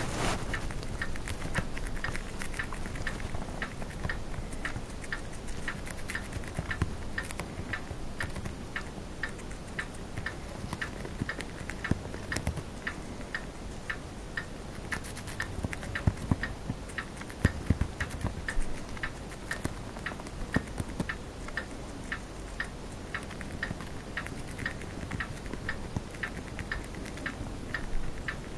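Chinese dwarf hamster nibbling a lettuce leaf: soft, irregular small clicks and crunches, with a few louder knocks partway through. Under it, a steady even ticking runs at about two ticks a second.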